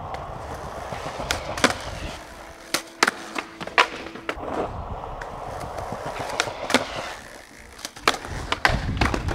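Skateboard wheels rolling on concrete, broken by a dozen or so sharp clacks and smacks of the board hitting the ground and ledge.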